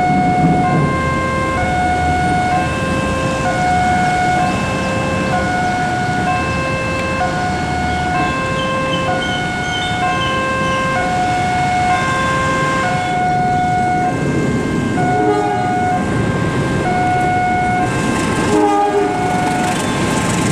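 Railway level-crossing warning alarm sounding a repeating two-tone electronic chime, a lower and a higher tone alternating about once a second, over the low rumble of a train passing the crossing.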